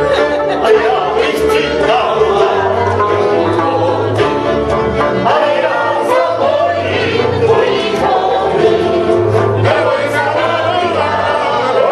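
A group of people singing together to live string-band music, with a bass playing sustained low notes underneath.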